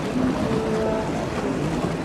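Outdoor riverside ambience: wind buffeting the microphone, with faint far-off voices.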